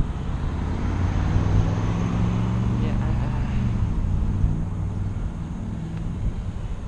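Vehicle engine running steadily under road noise, a low hum that eases slightly in the last couple of seconds.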